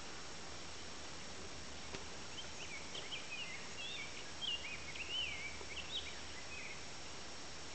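A songbird singing a string of quick notes that slide up and down, starting a couple of seconds in and stopping near the end, over a steady outdoor hiss.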